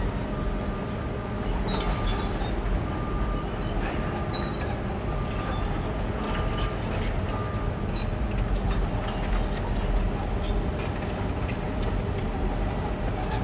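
Heavy demolition machinery working over concrete rubble: a steady diesel rumble with scattered clanks and knocks. A reversing alarm beeps about once a second through the first half.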